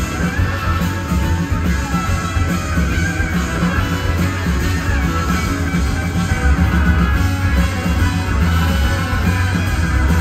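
Live band playing a song in concert, with electric guitars over strong, steady bass.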